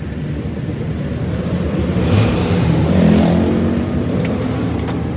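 A motor vehicle engine running with a low rumble that swells about two seconds in and eases again a second or so later.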